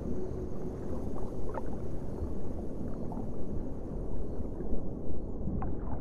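Ocean water ambience: a constant low rumble of moving water with small gurgles and lapping splashes.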